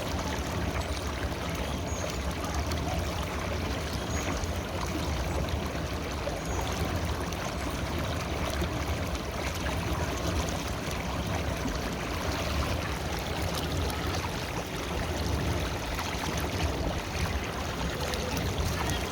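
A river flowing: a steady rush of running water with no let-up.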